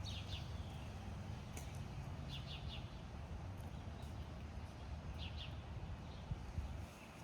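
Small birds chirping in short clusters of three or four quick notes, a few times, over a steady low outdoor rumble with a few faint clicks.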